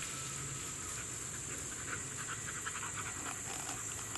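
Steady high-pitched buzz of an insect chorus, with a quick run of short clicks from about a second and a half in until near the end.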